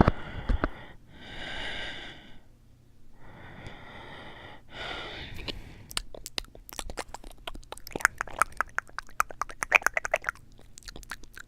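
A person breathing heavily, with four drawn-out breaths in the first half. From about six seconds in comes a dense run of sharp clicks and crackles.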